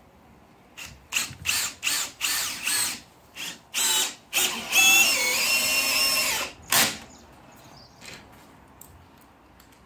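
Cordless drill fixing a bifold door cill. It runs in a string of short trigger bursts, then in one longer run of about two seconds whose whine steps down in pitch, then in a last short burst.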